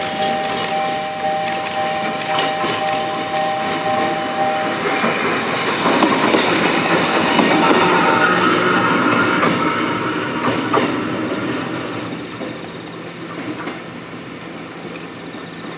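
Kotoden retro electric car No. 300 running slowly past during shunting. A steady whine stops about five seconds in, then the wheels clack over rail joints as the car passes close, loudest around the middle, and the sound fades as it moves away.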